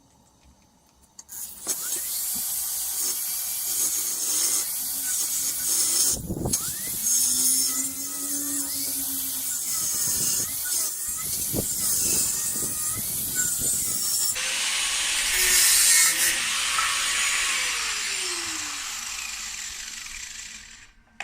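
Angle grinder cutting through steel box section: the disc starts about a second and a half in, cuts with a loud, hissing screech whose motor pitch wavers under load, briefly eases off near the six-second mark, and winds down with a falling whine near the end.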